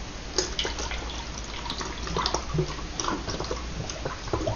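Almond milk poured from a glass measuring cup through a funnel into a plastic bottle: a steady pour with small, irregular splashes.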